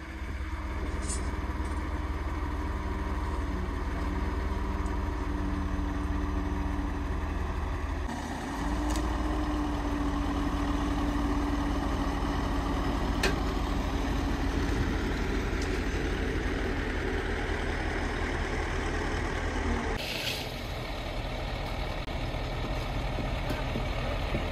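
Heavy diesel truck engines running steadily, a concrete mixer truck and a truck-mounted crane, with a low rumble and a steady humming note. The sound changes abruptly about 8 and 20 seconds in.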